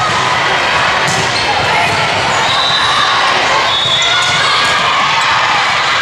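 Volleyball rally in a gym: a serve and then the slaps of the ball being hit, with sneakers squeaking on the hardwood court. Players and spectators talk and call out throughout.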